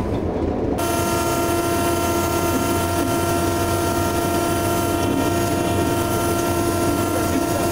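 Steam locomotive whistle sounded in one long, steady blast of a single held pitch with a hiss of steam, starting about a second in and held through the rest, over the low rumble of the moving train.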